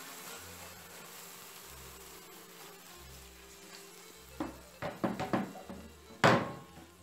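Hot oil and sour cream sizzling in a preheated enamel baking pan, then several knocks and clatters of the pan and bowls on a wooden board, the loudest near the end. Faint background music underneath.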